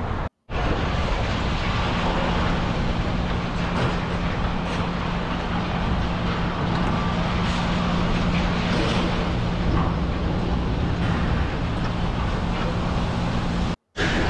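Car driving slowly, heard from inside the car: steady engine and road noise with a low, even hum. The sound cuts out briefly twice, once near the start and once near the end.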